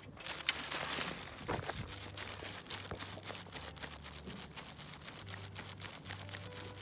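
A plastic carrier bag holding mackerel crinkles and rustles as a small animal noses into it, with a crackly run of small clicks and a louder rustle early on. A low hum comes and goes underneath.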